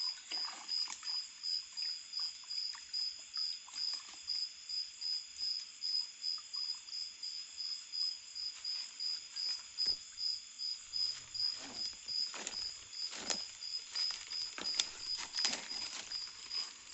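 A night insect chirping steadily in even pulses, about three a second. In the second half, a run of rustles and sharp clicks joins it.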